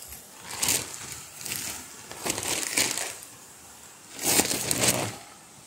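Plastic tarp crinkling as it is handled, in several bursts, the loudest about four seconds in.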